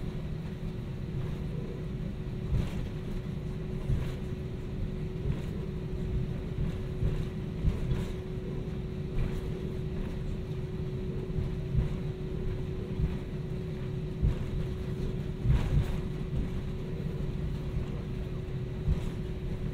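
Cabin noise of an Airbus A320-200 with its IAE V2500 engines running while taxiing: a steady low rumble under a constant hum, with irregular soft bumps and knocks from the airframe rolling over the taxiway.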